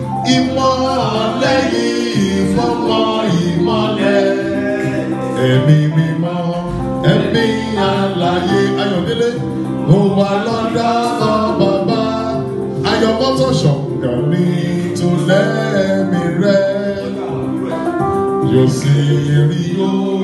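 A man singing into a microphone through a PA, over instrumental accompaniment.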